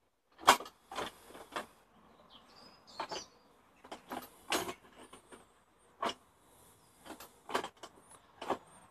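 A series of sharp clicks and knocks, about a dozen at irregular spacing, from handling the wooden steering wheel and chain-linked steering of a homemade go-kart. Birds chirp faintly in the background.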